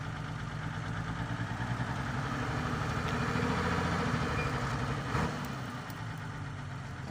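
Sand-delivery truck's engine running steadily, growing louder about halfway through and then easing back.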